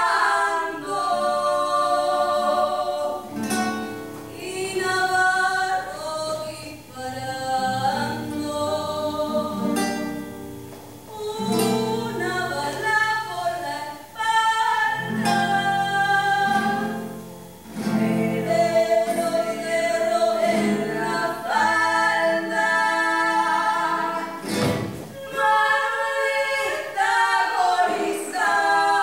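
Several voices singing a song together, accompanied by acoustic guitar, with a few sharp strummed or struck accents.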